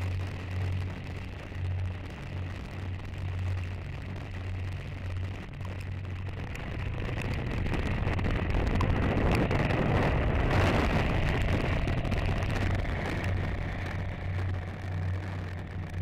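Motorcycle riding on a rain-soaked road: a steady low engine hum under the hiss of tyre spray and rain, the hiss swelling louder for several seconds about halfway through.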